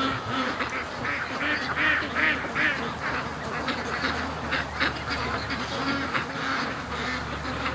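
A flock of domestic ducks quacking, many short calls overlapping one another without a break.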